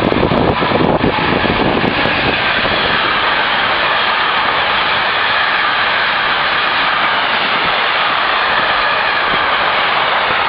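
Long container freight train running past close by: the wagons' wheels on the rails make a loud, steady rush. Uneven low buffeting in the first second or so gives way to the even rush.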